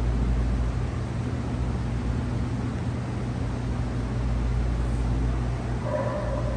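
Steady low hum and hiss of wall-mounted air-conditioning units running in a large metal building. About six seconds in, a thin high whine joins it.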